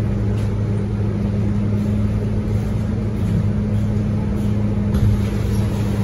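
Scania K230UB bus's five-cylinder diesel engine idling steadily with a low hum, heard from inside the bus.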